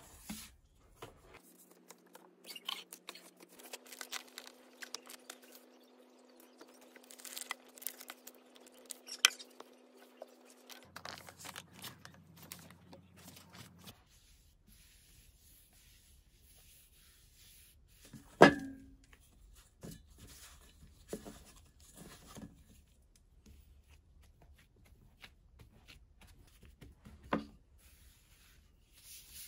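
Gloved hands squishing and pulling apart soft cookie dough in a stainless steel bowl, faint rustles and small clicks. Later the dough is handled on a flour-dusted board, with two sharp knocks, the louder one a little past halfway and a smaller one near the end.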